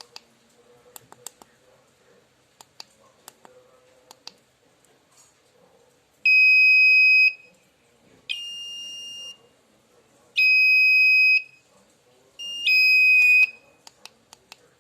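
Buzzer on a homemade Arduino (ATmega328P) temperature alarm sounding four steady, high-pitched beeps of about a second each, roughly two seconds apart, the second one quieter. Faint button clicks come before the beeps and again near the end.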